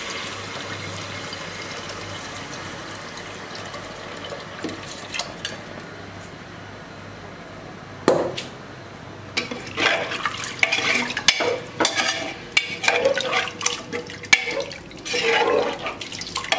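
Water pouring from a metal vessel into a pressure cooker of chicken masala, the pouring sound fading over the first few seconds. From about eight seconds in, a steel ladle clinks against the pot and stirs the liquid in a run of irregular clicks, scrapes and splashes.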